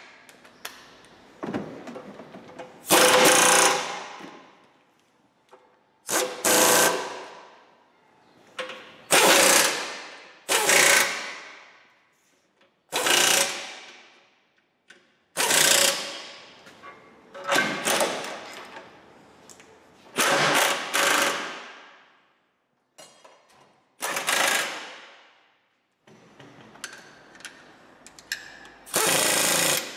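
Power wrench running in about a dozen short bursts of roughly a second each, each starting sharply and trailing off, as bolts are run in during reassembly.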